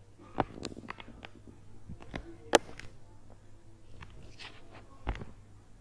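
Several sharp clicks and knocks of objects being handled, the loudest about two and a half seconds in and another near the end, over a steady low electrical hum.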